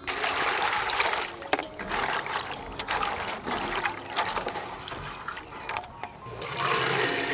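Water pouring into an aluminium basin of small wild berries, then hands swishing and rubbing the berries in the water with irregular splashes, and another rush of water splashing near the end.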